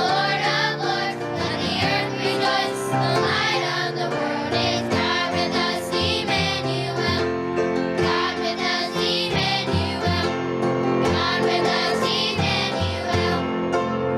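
Children's choir singing a Christmas song over instrumental accompaniment; the voices stop near the end, leaving the accompaniment playing on.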